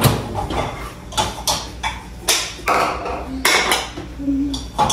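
Dishes clinking and knocking as clean dishes are taken out of a dishwasher's wire racks, about eight sharp knocks with short ringing, including a bowl set down on a granite countertop.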